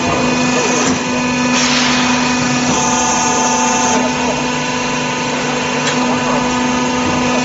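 Sheet curving machine running with a steady hum as it slowly bends corrugated metal roof sheets into a curve, with a brief hiss about one and a half seconds in.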